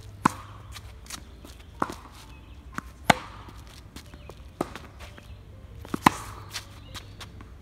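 Tennis rally: a ball struck back and forth with rackets and bouncing on a hard court. The loudest pops are the near player's strokes, about a quarter second, three seconds and six seconds in, with fainter hits and bounces from the far end between them.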